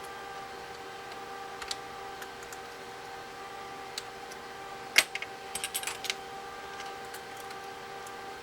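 Small, sharp clicks and taps of tools and fingers on a tiny plastic-and-metal cable connector latch inside an iPod, with one louder click about five seconds in followed by a quick flurry of small clicks. A steady faint hum of several tones runs underneath.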